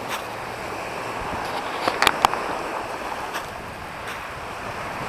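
Steady rush of wind on the microphone and sea surf, with a few sharp clicks about two seconds in.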